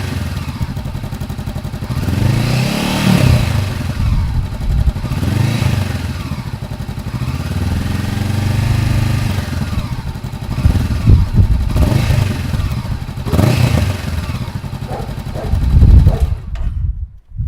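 Honda CB500X parallel-twin motorcycle engine being revved repeatedly through its exhaust, with a throttle blip every couple of seconds, until it stops suddenly about a second before the end.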